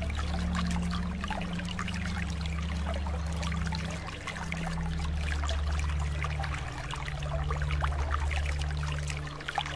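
Trickling, bubbling water over a steady low hum that shifts slowly in pitch.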